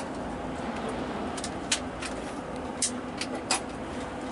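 Steady cabin noise of a moving bus: engine hum and road noise, with several short, sharp clicks in the middle of the stretch.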